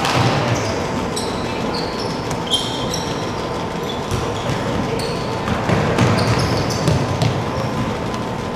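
Basketball being played on a hardwood gym court: sneakers squeak again and again in short, high chirps, with the low thuds of the ball and running feet over the steady din of a large hall.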